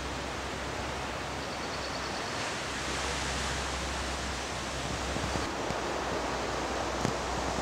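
Steady rushing outdoor background noise with no distinct source. A faint high trill comes about a second and a half in, and a soft click near the end.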